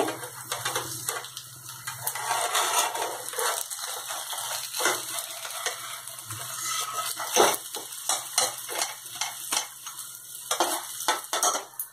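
A steel spatula scrapes and clicks against a non-stick frying pan as it slides under a cutlet, lifts it and flips it over, in a run of irregular scrapes and taps.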